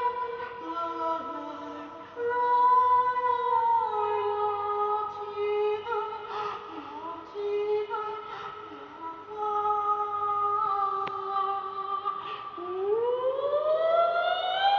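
A young man singing sustained high notes into a microphone, holding each note long. About twelve seconds in his voice slides steadily up to a high held note.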